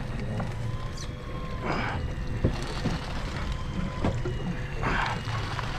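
Small fishing boat at sea: a steady low rumble, with water splashing against the hull twice, about two seconds in and again about five seconds in.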